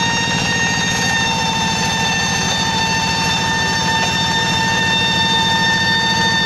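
Rice-field tractor's engine running steadily, with a high, steady whining 'nging' over its fast even beat.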